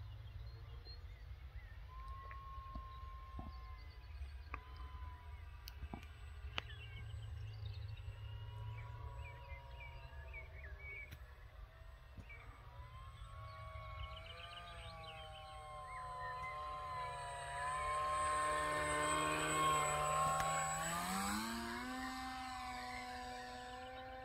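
Electric motor and propeller of a 48-inch Dave Boddington Tiger Moth RC biplane in flight, a steady pitched whine. It grows louder over the last third, then its pitch steps up sharply a few seconds before the end.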